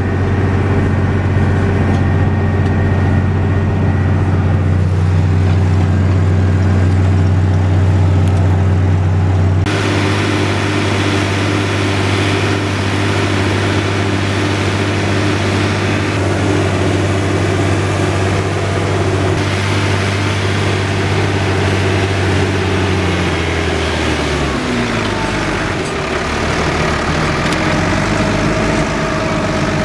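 Fendt Favorit 512 C's six-cylinder diesel engine running steadily under plowing load, heard first from inside the cab, then from outside after an abrupt change about ten seconds in. The engine note falls away about 23 seconds in.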